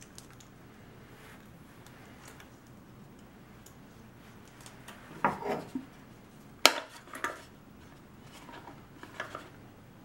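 Hard plastic clacking and knocking as PVC pipe and elbow fittings are handled and pushed together on a wooden plate. There is a flurry of knocks about halfway through, a sharp click just after, and a few lighter clicks near the end.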